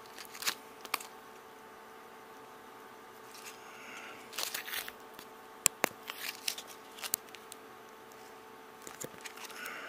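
Clear plastic tube of soldering tips being handled: scattered clicks, taps and crinkles of hard plastic, with the sharpest clicks in the middle and a short cluster near the end.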